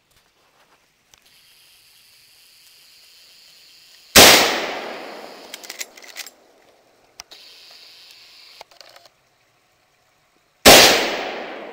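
Two rifle shots from a Marlin Model 336 lever-action in .30-30, about six and a half seconds apart, each a sharp crack with a long echoing tail. A few short clicks follow the first shot.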